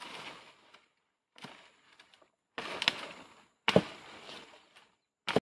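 Chopping blows with a blade into dry wood, several sharp strikes roughly a second apart, as branches are cut off a felled dry tree for firewood. The sound drops out abruptly to silence several times between strikes.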